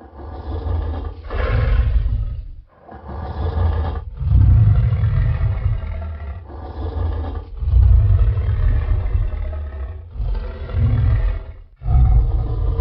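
Designed King Kong sound effect: a giant ape's deep, rumbling roars, about eight in a row, each one to two seconds long, with short breaks between them.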